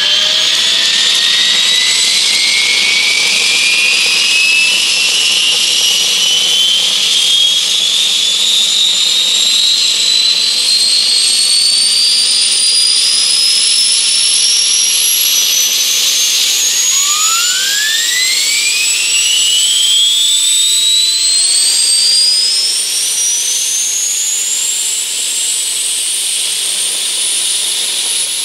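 UH-1H Huey turbine start-up sound played by an RC helicopter sound module: a turbine whine rising slowly and steadily in pitch as the engine spools up. About 17 seconds in, a second whine rises quickly and keeps climbing.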